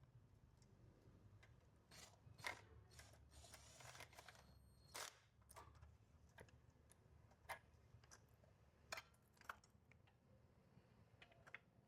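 Faint, scattered clicks and taps of small metal parts and a hand tool being handled while a 49cc engine's carburetor is put back together, with a few sharper clicks spread through.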